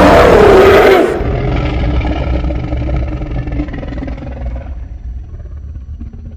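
A monster roar sound effect: loud for about the first second, then falling away into a low rumbling tail that fades out over several seconds.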